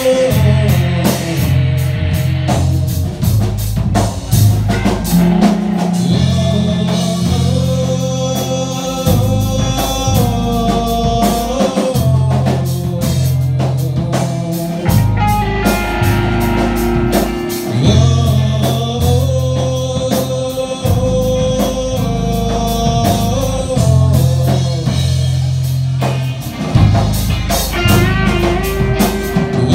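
Live rock band playing: electric guitar over bass and a drum kit, with singing.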